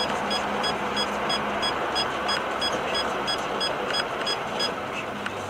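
Car driving along a highway, heard from inside the cabin: steady tyre, road and engine noise, with a regular series of short high beeps through it.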